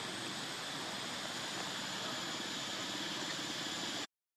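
Steady outdoor background hiss with a constant high-pitched whine above it and no animal calls. Near the end the sound cuts out to dead silence for about half a second.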